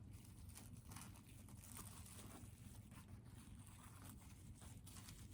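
Near silence, with faint soft rustles and light taps of dough and plastic wrap being handled.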